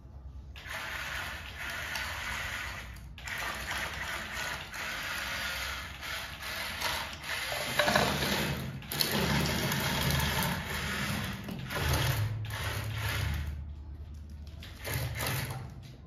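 Small electric motor and plastic gearbox of a toy excavator-bulldozer whirring as it drives, its wheels rolling over stone and sand. It stops briefly a couple of times, and a lower rumble joins from about halfway, when it passes closest.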